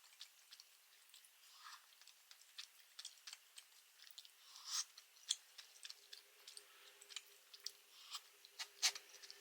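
A person chewing spicy Buldak tteokbokki rice cakes: faint, wet mouth clicks and smacks, several a second, with a sharper click near the end.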